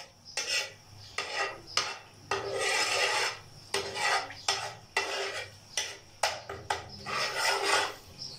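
Slotted metal spatula scraping across the bottom of a metal pan, stirring ground spices in oil. About a dozen short scraping strokes, two of them longer.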